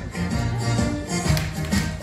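Music with a moving bass line and a regular beat.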